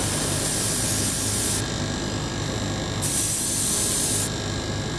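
Airbrush spraying paint in two hissing bursts of about a second and a half each, with a pause of about a second and a half between; a low steady hum runs underneath.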